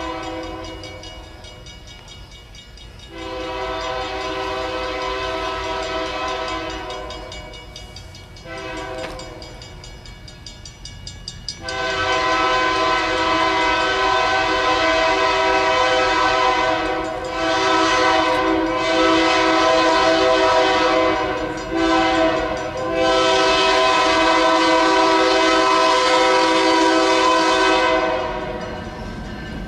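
Approaching diesel locomotive sounding its multi-chime air horn, a chord of several tones, in the grade-crossing pattern. The tail of one long blast ends about a second in, followed by another long blast, a shorter one, then a long held blast that grows louder as the train nears.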